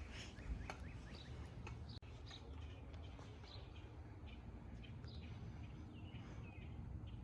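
Faint birds chirping, short scattered calls over low steady outdoor background noise, with one sharp click about half a second in.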